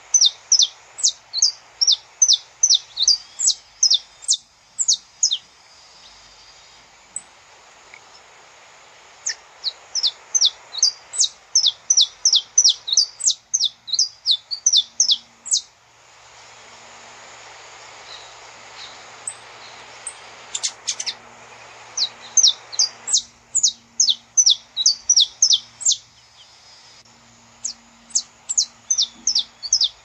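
Saffron finch (canário-da-terra) singing in four bursts of quick, sharp, high chirping notes, about three a second, each burst lasting several seconds. Pauses filled by a soft hiss separate the bursts.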